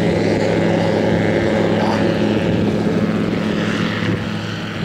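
Super Petrel amphibious biplane's pusher propeller engine running at takeoff power as the hull leaves the water and the plane climbs out. A steady engine drone that fades slightly near the end as the plane pulls away.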